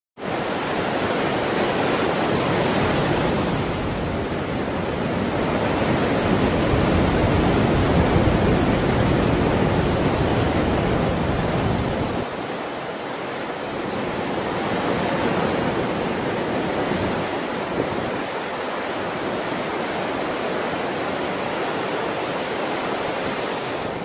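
Ocean surf: waves breaking and washing up the shore in a steady rush that swells and eases, loudest about eight seconds in.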